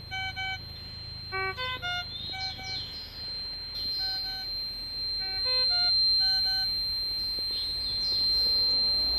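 Puritan Bennett 840 ventilator beeping: short runs of a few pitched electronic tones, repeated several times, over a steady high whine.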